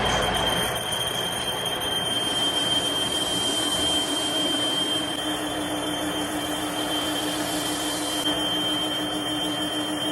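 Steady machine noise with a continuous high whine. A lower hum joins about three seconds in.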